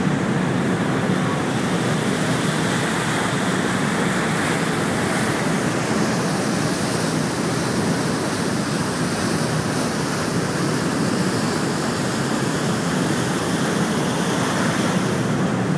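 Steady rush of wind over the microphone and churning water from a moving ferry's wake, heard from the open deck, with a low rumble underneath.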